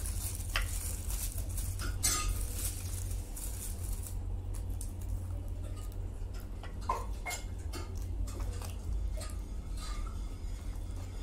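Aluminium foil crinkling and rustling as a foil-wrapped roll is handled, with small clicks and taps against the plate and bowl, over a steady low hum. Near the end comes a bite into the roll and chewing.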